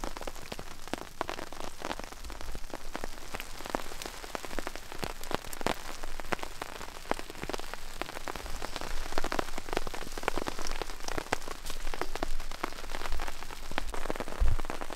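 Heavy rain pattering on a tarp overhead: a dense, irregular spatter of drops over a steady hiss.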